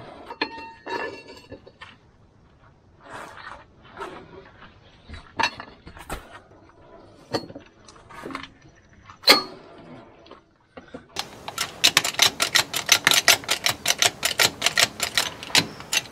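Socket wrench on the rusty wheel nuts of a tractor rim: scattered metal clinks and knocks, with a few sharp ringing strikes. About eleven seconds in comes a fast, even run of ratchet clicks, about ten a second, lasting some five seconds.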